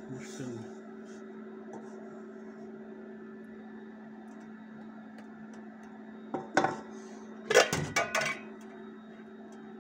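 Steady hum of an induction cooktop running, with a wooden spatula clattering against an aluminium pot about six and a half seconds in and again in a quick run of knocks about a second later.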